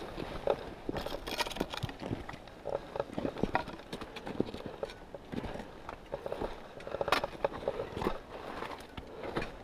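Mountaineering boots crunching into hard snow and scuffing over rock, an uneven run of footsteps.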